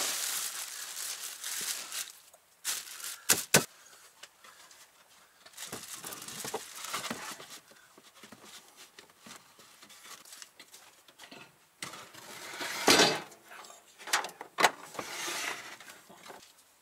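Plastic wrapping on a mattress rustling as the mattress is pushed into place, then scattered knocks and thuds of a wooden board and a microwave being set down, the loudest about two-thirds of the way through.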